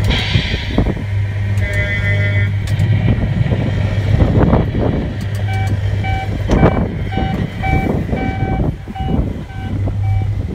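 R.G. Mitchell Mitch the Dumper Truck coin-operated kiddie ride playing its electronic truck sound effects: a steady low hum with engine-like rumbling, a short horn-like tone about two seconds in, then a repeated reversing beep, about two a second, from about halfway.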